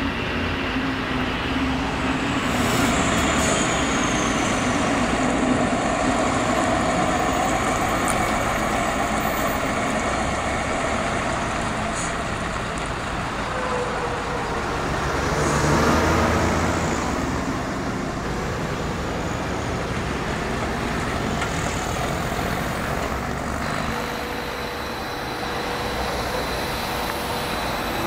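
Diesel reach stacker running as it handles a swap-body container. About halfway through, a Mercedes-Benz Actros lorry drives past, and this is the loudest moment.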